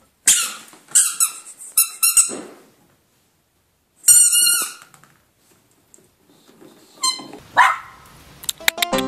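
Squeaky rubber chicken dog toy squeaking: a quick run of short high squeaks, then one longer wavering squeak about four seconds in.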